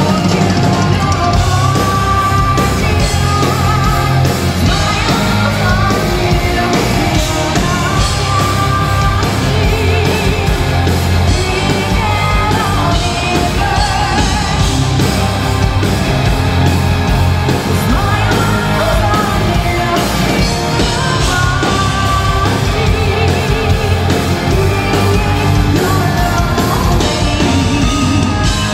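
Symphonic metal band playing live: a female lead singer's voice over heavy drums, bass and guitars, loud and dense in a concert hall.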